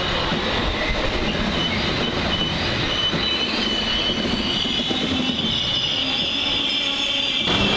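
Trains running through a station on curved track: the steady rumble of passing railcars, with steel wheels squealing high and growing stronger in the second half. The sound changes abruptly about half a second before the end.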